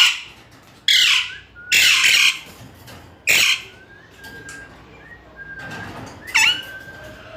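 Green parrot calling: four loud, harsh screeches in quick succession, then a few short, thin whistled notes and one more sharp call near the end.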